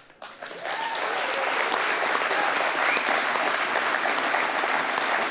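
Conference audience applauding. The clapping builds up over the first second, then holds steady.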